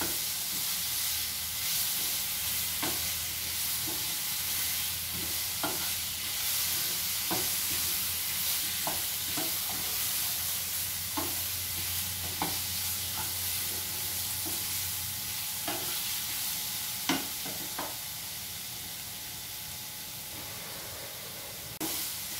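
Spiced potato cubes sizzling steadily as they fry in a non-stick frying pan, with a spatula stirring and scraping them and now and then tapping the pan. The spices are being fried down with the potatoes.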